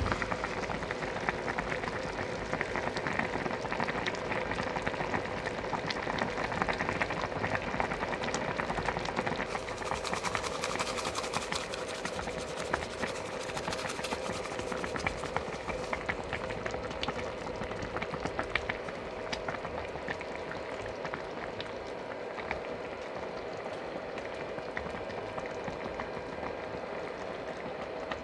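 A pot of dumpling soup bubbling at a rolling boil: a steady hiss full of small pops and crackles. It turns brighter and hissier for a few seconds about ten seconds in.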